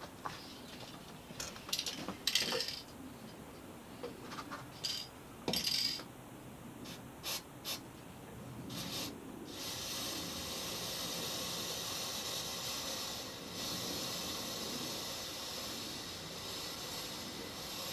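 Aerosol can of Würth dry chain lube spraying onto a motorcycle drive chain: a few short bursts among light metallic clicks and rattles, then a long steady hiss from about halfway on.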